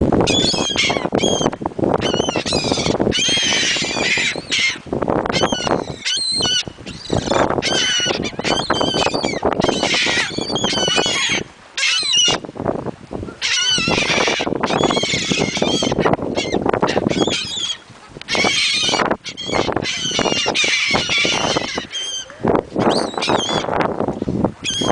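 A flock of seagulls squawking and calling over one another, many overlapping harsh, wavering cries in a continuous loud din with a few brief lulls, over a steady low rush.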